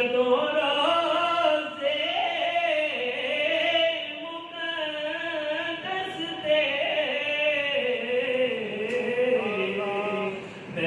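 A man's solo voice singing a Punjabi naat unaccompanied, holding long notes that slide from one pitch to the next, with short breaks between phrases.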